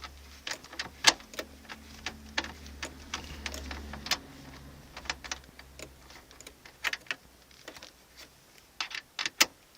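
Irregular small clicks and taps of a T20 Torx screwdriver turned by hand, undoing the screws that hold a car's stock stereo in the dashboard. A low hum sounds under the first half and fades out.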